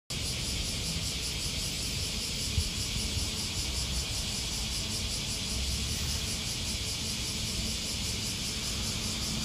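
Outdoor ambience: a steady, high drone of insects over a low rumble of distant traffic, with one brief knock about two and a half seconds in.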